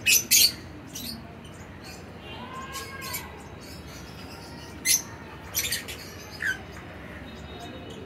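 Lovebirds giving short, shrill chirping squawks as they feed: two close together at the start, one about five seconds in, then a quick cluster of calls.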